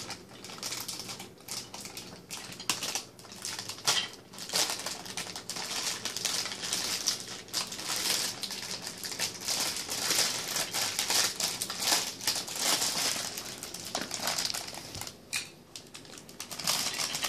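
Clear plastic bag of Lego Duplo pieces crinkling and crackling as small hands squeeze and pull at it to get it open, with a dense run of small clicks.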